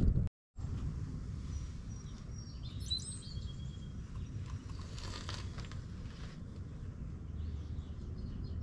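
Steady low background rumble with a few faint bird chirps about two and a half to three seconds in, after a brief dropout to silence at the start.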